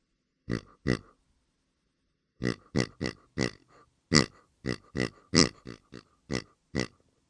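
Pigs grunting in short, separate grunts: two about half a second in, then after a pause a quick run of about a dozen.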